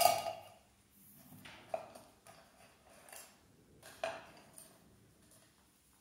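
A sharp knock of small hard objects on a tabletop right at the start, with a short ring, then two fainter knocks about 1.7 and 4 seconds in.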